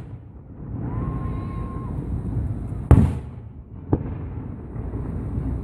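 Fireworks exploding: one loud boom about three seconds in and a smaller sharp bang a second later, over a steady low rumble from the display.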